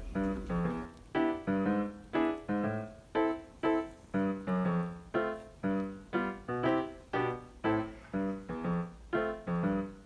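Background piano music: notes played at an even pace of about two a second, each struck sharply and then fading.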